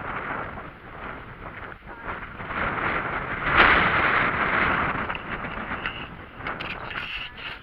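Wind buffeting the camera's microphone: a steady rushing that swells to its loudest about three and a half seconds in.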